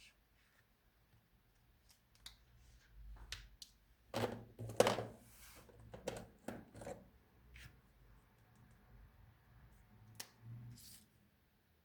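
Crafting materials being handled: a cluster of sharp snips and crinkles about four to seven seconds in, loudest around five seconds, then a single sharp click near ten seconds.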